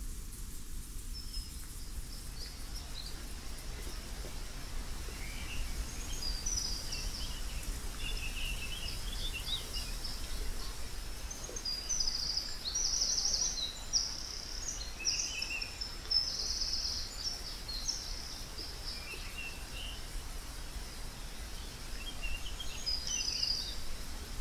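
Small birds chirping and singing in short, high phrases scattered throughout, over a steady low outdoor rumble.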